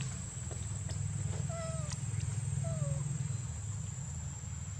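Young macaques giving a few short, falling, meow-like calls over a steady low rumble.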